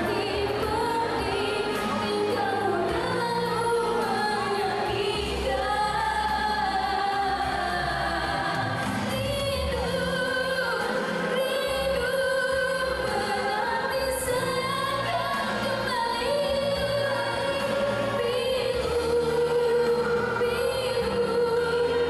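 A woman sings a Malay pop song live into a handheld microphone over backing music, holding long notes. The voice is amplified through a PA system.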